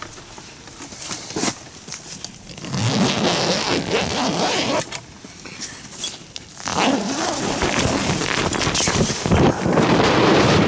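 A tent door zipper being pulled open in stretches, with a pause about halfway, and fabric scraping.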